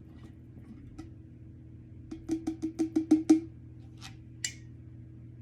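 A quick run of about eight light knocks, each with a short hollow ring, over a little more than a second, then two sharper clicks.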